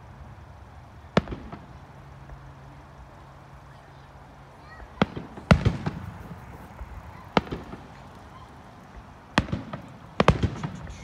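Aerial fireworks shells bursting overhead: a single sharp bang about a second in, then a run of bangs with echoing tails from about five seconds on, several coming in quick succession near the end.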